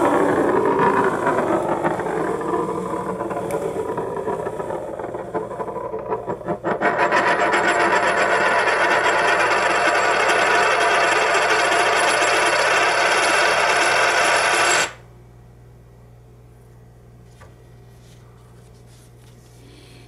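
Large silver coin spinning on its edge on a hard surface, whirring with a high ring. About seven seconds in it settles into a fast, even wobbling rattle as it tips toward flat, which stops abruptly about fifteen seconds in as the coin comes to rest.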